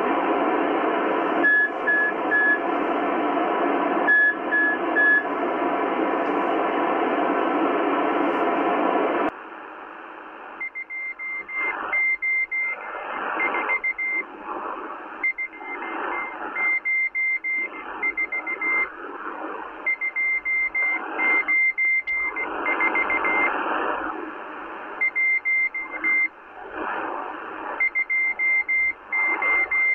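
Shortwave Morse code from the M12 Russian spy station on a Kenwood R-1000 communications receiver. At first there is heavy static hiss with two faint groups of three short beeps. About nine seconds in it cuts to a clearer high Morse tone keyed in dots and dashes over static that swells and fades.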